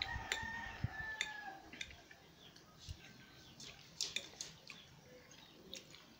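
A rooster crows once in the background near the start, a single drawn-out call of about a second and a half that falls slightly at its end. Scattered sharp clicks of a fork against a plate come through as the jelly is eaten.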